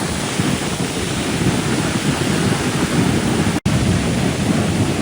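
Atlantic surf washing up and drawing back on the beach, with wind buffeting the microphone: a steady rushing noise, heaviest in the low end. It cuts out for an instant a little past halfway.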